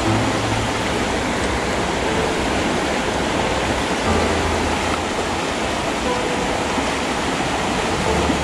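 Steady rush of river water over rapids or a falls.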